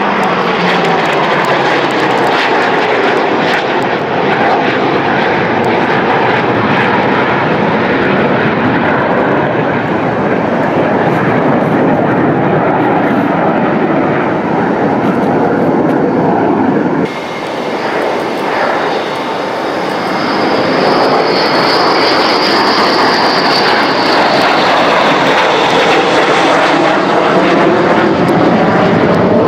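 Loud, continuous jet noise from a J-20 fighter's twin jet engines during a low display pass, the sound slowly sweeping in pitch as the aircraft moves. About seventeen seconds in the noise drops abruptly and then builds again.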